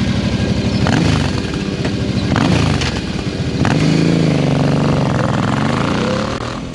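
Cruiser motorcycle engine revving, its pitch surging up several times and then dipping and rising again before fading.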